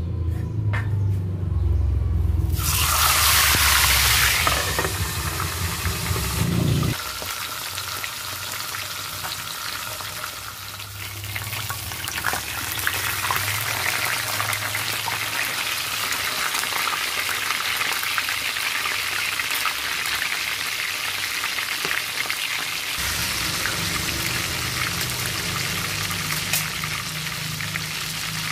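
Whole fish frying in hot oil in a wok: a loud rush of sizzling about two and a half seconds in, easing into steady sizzling with small crackles.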